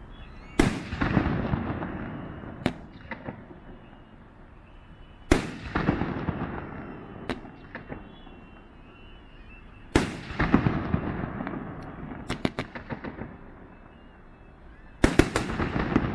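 2.5-inch aerial firework shells fired from a nine-shot mortar rack, going off about every five seconds. There are four loud booms, each followed by a fading echo and a few short sharp cracks.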